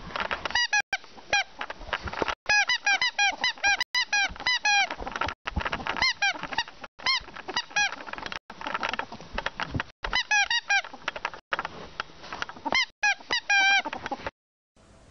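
Ferret dooking while it hops about: quick runs of short, squeaky clucking notes in bursts, with scuffling and bumping noises between them.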